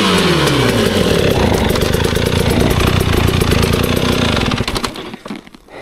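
Two-stroke GasGas enduro motorcycle engine on a slick climb. The revs fall away at the start, then hold steady and high while the rear tire finds little grip. The engine sound drops off sharply near the end.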